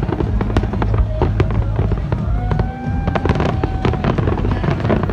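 Large aerial fireworks display: a dense run of bangs and crackles over a continuous low rumble, with a few long whistles from shells around the middle.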